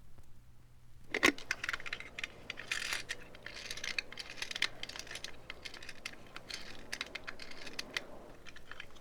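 A sharp metallic clack about a second in, then a dense, irregular run of light metallic clicks and jingles.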